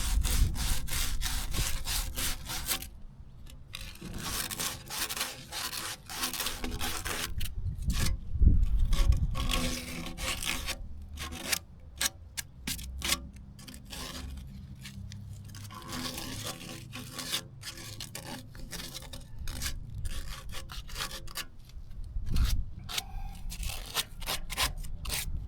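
Emery cloth rubbed rapidly back and forth over the cut edge of irrigation pipe, deburring and cleaning it before gluing, in runs of quick scraping strokes with short pauses.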